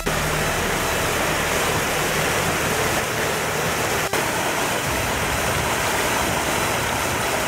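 Shallow mountain creek rushing over rocks, a steady rush of water.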